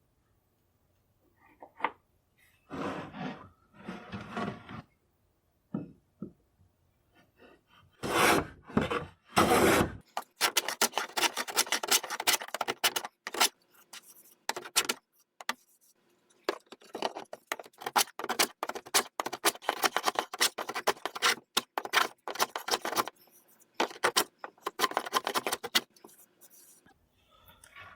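Hand plane shaving the end of a walnut rifle buttstock to remove the step left by the bandsaw blade. A few separate scraping strokes come first, then a long run of quick, short strokes, several a second.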